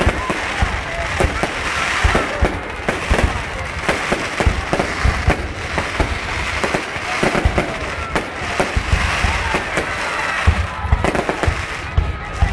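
Fireworks display: a rapid, irregular run of bangs and crackling with no let-up, and voices heard faintly underneath.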